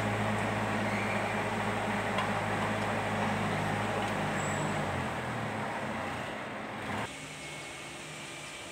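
Kubota B1502 compact tractor's diesel engine running steadily. Its pitch drops a little about five seconds in, and at about seven seconds the sound suddenly becomes quieter.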